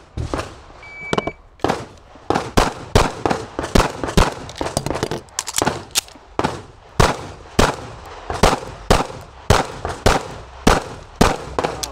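An electronic shot-timer start beep about a second in, then a long string of pistol shots, about two a second, as a competitor shoots a practical shooting stage.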